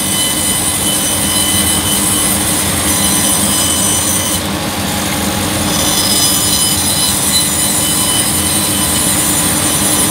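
Hammer N3800 bandsaw running and crosscutting a wooden block, a steady whine and hiss of the blade in the cut that eases briefly about halfway through.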